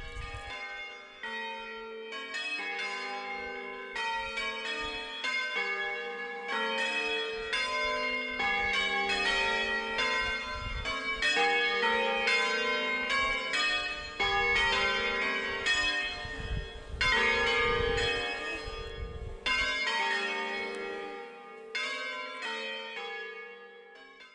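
Several church bells ringing a peal, many struck notes in quick succession with long ringing overtones, fading toward the end.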